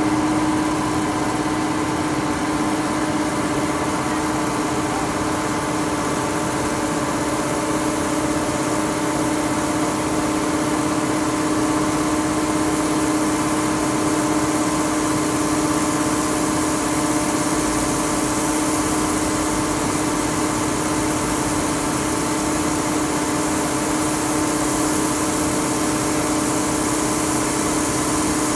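Steady drone of the barge-loading machinery, with a constant hum, as crushed stone pours off an overhead conveyor into a barge's hold; the hiss of falling stone grows a little stronger about two thirds of the way through.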